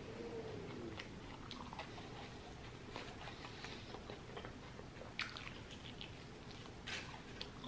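Close-miked chewing of a cheesesteak sandwich: soft wet mouth clicks and smacks, with a couple of sharper smacks about five and seven seconds in.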